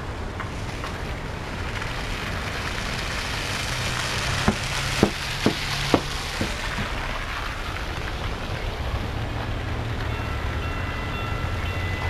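Street traffic on a slushy road: a hiss of tyres through wet snow swells and fades as a vehicle passes, with five sharp knocks about half a second apart midway. Near the end, steady high tones come in as a light-rail train approaches.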